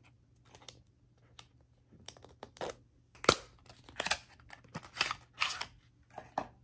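Paperboard box of an Apple silicone phone case being torn open and handled, the case then slid out. A run of short tearing, scraping and rustling sounds, loudest a little over three seconds in.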